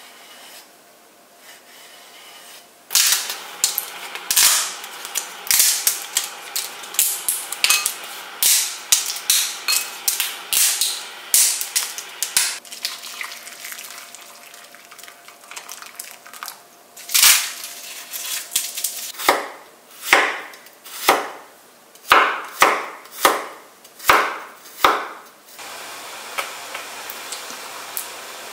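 Sharp knocks of a knife chopping on a wooden cutting board, quick and irregular at first, later about one a second. Near the end, a steady bubbling of water boiling in a saucepan.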